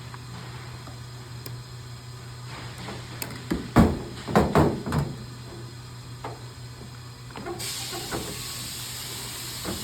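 Wire cutters snipping the ballast's wires: a cluster of sharp clicks and rattles about four seconds in, over a steady low hum. A steady high hiss comes in suddenly near the end.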